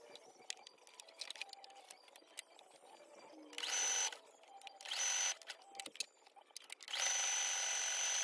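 Brother electric sewing machine stitching in three short runs: two brief ones, then a longer run of over a second near the end, each with a steady high whine. Between the runs come small clicks and fabric handling.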